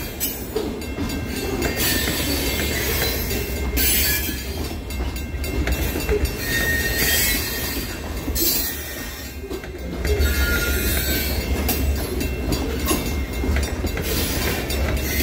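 A freight train of grain cars rolling past at low speed, with a steady low rumble and wheels clacking over the rail joints. Brief high wheel squeals come now and then.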